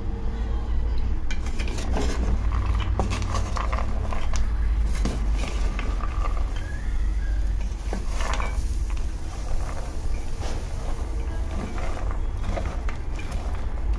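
Raw peanuts being stirred and turned in a hot pan with a wooden spoon, the nuts rattling and scraping against the pan in uneven bursts of clicks. A steady low rumble runs underneath.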